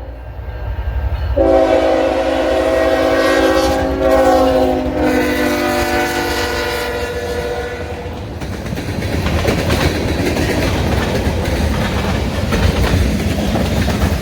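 A CN freight train's lead locomotive sounds its horn in a chord held for several seconds, dropping in pitch partway through as the locomotives pass. Then the horn stops and the freight cars roll by with a steady rumble and clickety-clack of wheels on the rails.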